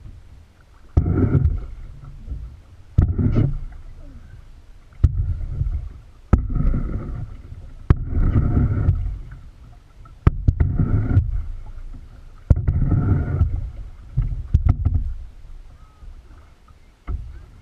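Kayak paddle strokes in the water, a sudden splash and swirl roughly every two seconds, with a quieter wash of water between strokes.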